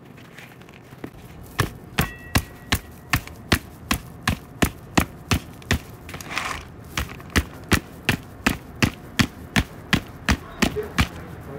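Green plastic flower pot being knocked repeatedly, about three sharp knocks a second, to loosen the packed soil and amaryllis bulb so they come free of the pot.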